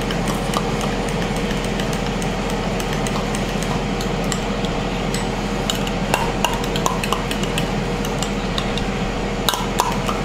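Spoon stirring a thick mayonnaise and cream-cheese sauce in a bowl: steady scraping and squelching, with a few light clinks against the bowl near the end.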